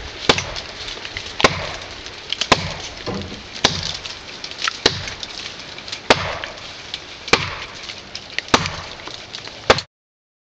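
Gränsfors Bruks small forest axe chopping into a standing tree trunk: nine sharp strikes about a second apart, stopping abruptly near the end.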